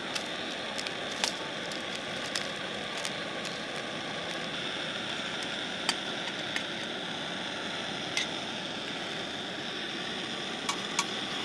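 Wood fire crackling in a Dakota fire pit: a steady hiss with scattered sharp pops.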